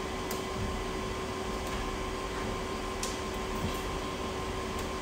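Steady background hum with a constant tone in it, and a couple of faint clicks, about a third of a second in and again about three seconds in, as the LCD panel is handled.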